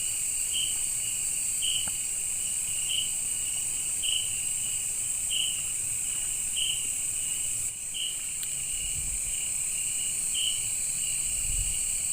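Chorus of night insects: a steady high-pitched trill, with a second, lower call pulsing about once every second and a bit.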